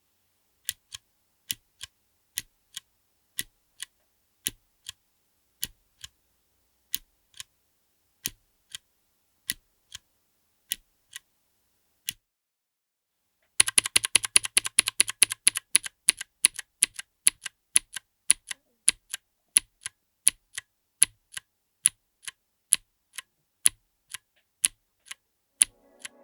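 Outemu Cream Blue clicky switches on a mechanical keyboard with an FR4 plate in an aluminium case, each keystroke a sharp click. The keys are pressed one at a time about twice a second, then stop for a couple of seconds. Near the middle comes a quick burst of fast typing, and single keystrokes follow again.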